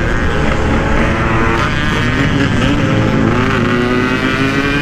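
Yamaha RX-King 135 cc two-stroke single-cylinder motorcycle engine running under way, its note climbing slowly in pitch as it picks up speed, with heavy wind rumble on the microphone.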